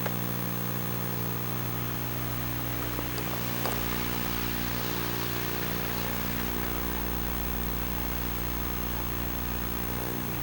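Steady electrical buzz in the audio of a Sony Hi8 Handycam: a low hum with many evenly spaced overtones that does not change, over a faint hiss.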